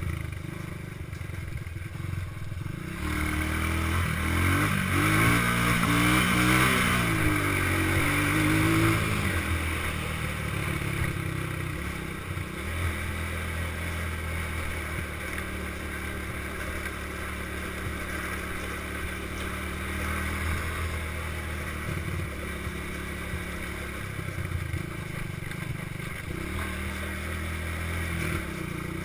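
Small single-cylinder four-stroke ATV engine under way on a dirt road: the revs rise and fall a few seconds in as it picks up speed, then it runs fairly steadily at cruising speed, with wind and road noise over it.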